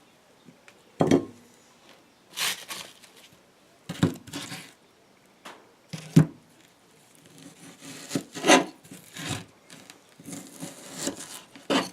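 Bark River Gameskeeper knife slicing through partially frozen chicken breast: a series of short rasping cutting strokes, about seven of them, irregularly spaced a second or two apart.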